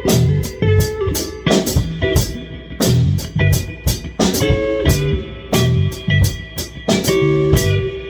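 Live band jamming: drum kit keeping a steady beat with sharp hits about twice a second, under held electric guitar notes and a bass line.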